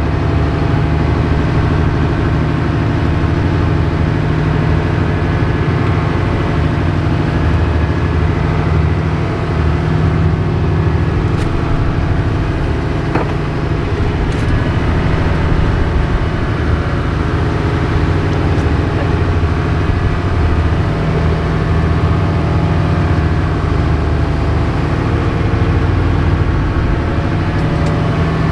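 Boat engine running steadily while the boat is under way: a constant low drone with a few faint ticks around the middle.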